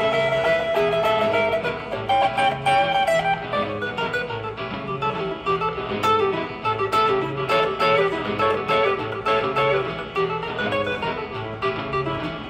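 Live rock band playing an instrumental jam: guitar lines over a pulsing bass line and drums.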